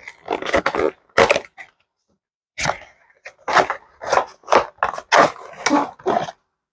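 Packaging being torn open: a quick run of rips and crinkles from card and plastic. A short pause comes about two seconds in, then a longer stretch of tearing.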